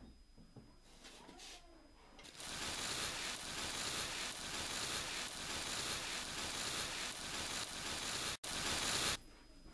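A loud, even rustling hiss starts about two seconds in, drops out for an instant near the end, and cuts off abruptly.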